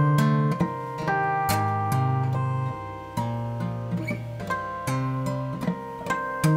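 Steel-string acoustic guitar played solo fingerstyle: sustained bass notes under a ringing melody, with sharp percussive strikes about twice a second keeping the beat.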